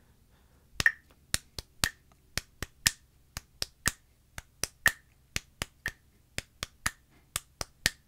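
Hand claps in a repeating sixteenth-note figure against a metronome clicking once a second at 60 beats per minute. On each beat a clap lands together with the click, then comes a short gap, then two quick claps. The figure is a sixteenth note, a sixteenth rest and two sixteenths.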